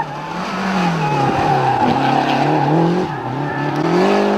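Rally car engine revving hard, its pitch rising and falling over and over as the throttle is worked, with tyre noise.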